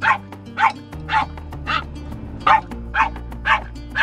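A small dog barking again and again, about eight sharp barks at roughly two a second, over background music.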